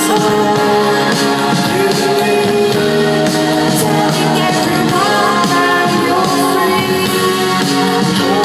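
Live band playing through a festival PA: a woman singing into the microphone over electric guitar, keyboards and drums.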